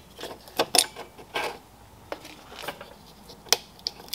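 Irregular plastic clicks and knocks from a car fog light's housing and bulb socket being handled, as the bulb socket is twisted and pulled out of the back of the housing.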